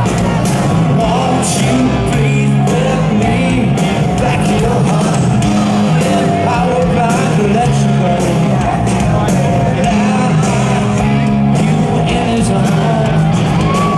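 Live rock band playing loudly through a stadium PA: electric guitars, bass and a steady drumbeat, with vocals over it.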